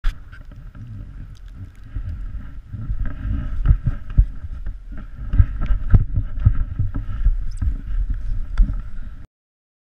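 Wind buffeting the microphone of a pole-mounted action camera on a moving chairlift: a muffled rumble with irregular knocks and bumps from handling the camera. It cuts off suddenly near the end.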